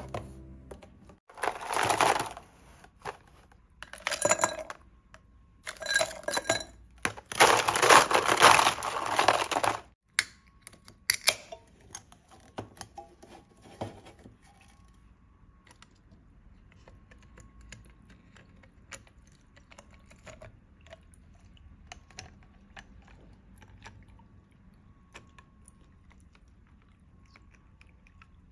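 Ice cubes being scooped from a plastic ice box and dropped into a glass tumbler, clattering and clinking in four bursts over the first ten seconds, the last about two seconds long. After that come only scattered light clicks.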